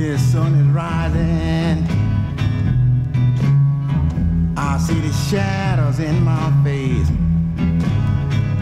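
Vintage country-blues record playing from vinyl in mono: an instrumental passage with guitar keeping a steady beat under a lead line that slides down in pitch in two long phrases.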